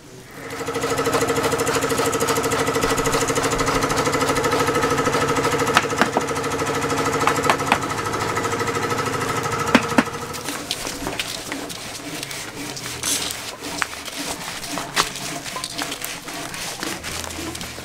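Jackhammer running with a rapid, steady pulsing for about ten seconds, then stopping; scattered clicks and knocks follow.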